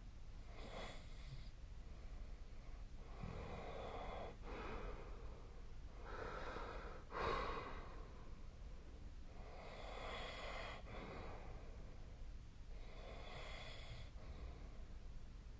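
A sleeping person's noisy breathing: five slow breaths, about one every three seconds, with one louder, sharper breath about halfway through.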